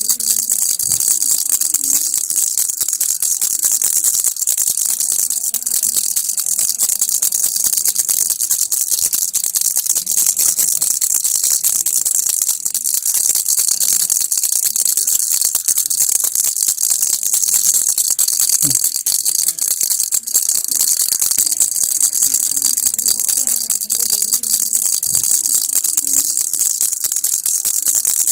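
A baby rattle being shaken continuously, making a dense, steady rattling.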